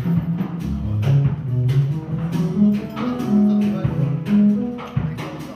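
Live jazz-soul band playing, with low pitched bass notes prominent and a steady run of drum strokes through the music.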